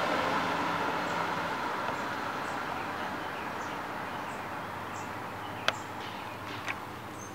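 Outdoor street ambience: a steady background rumble that slowly fades, with small birds chirping in short high notes and two sharp clicks near the end.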